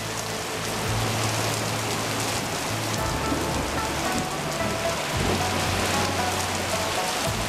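Heavy rain pouring down in a steady hiss. Faint music notes come in under the rain about three seconds in.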